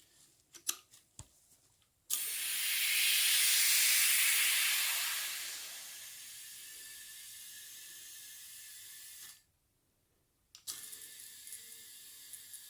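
Compressed air hissing. It starts suddenly about two seconds in, swells to a loud hiss, then settles to a steadier, quieter hiss and cuts off, and a fainter hiss starts again near the end. A few light clicks come before it.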